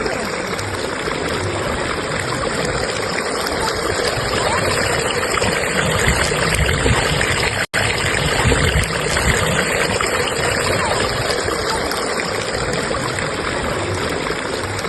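Fast-flowing stream water rushing steadily, with a split-second dropout about halfway through.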